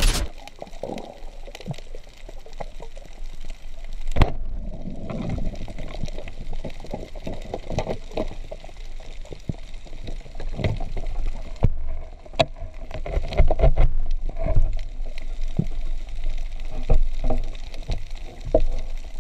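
Sound heard underwater on a reef: a muffled wash of moving water with scattered clicks and knocks, the sharpest about four seconds in.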